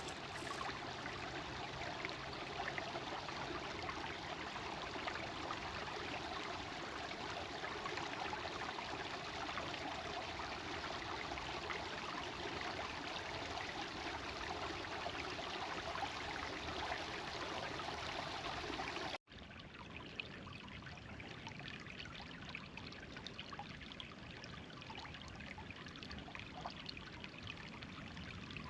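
Creek water flowing steadily. About two-thirds of the way through it cuts off abruptly and resumes a little quieter.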